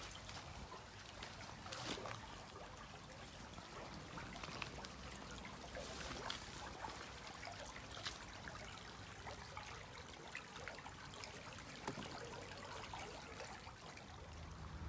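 Shallow stream rippling and trickling over stones and concrete blocks, with a few sharp clicks scattered through it.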